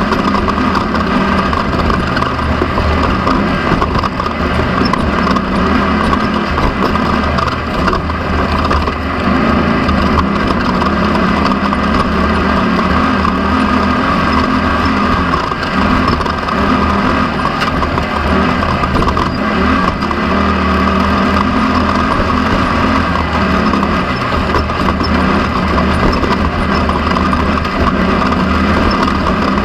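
Off-road race car's engine running hard at a steady pitch, heard from onboard, with knocks and rattles throughout.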